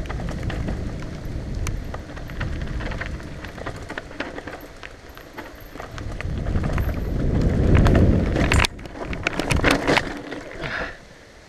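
Mountain bike rattling, its tyres rumbling and crunching down a rough dirt trail at speed, with wind on the microphone, growing louder about six seconds in. The bike crashes: the rush cuts off suddenly and a run of sharp knocks and clatters follows as the bike and rider hit the ground.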